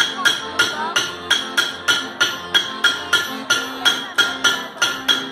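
Hammers striking an anvil in a steady, even rhythm of about three strikes a second, each blow ringing metallically, as the hammering beat of a Bavarian blacksmith Schuhplattler dance.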